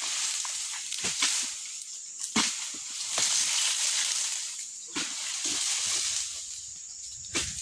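Footsteps crunching and rustling through dry cut oil-palm fronds and undergrowth, with a sharp crack of a stepped-on frond every second or so.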